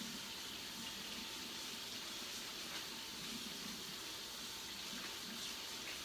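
Kitchen faucet running steadily, its stream pouring through canned black beans in a strainer to rinse off the salty packing liquid.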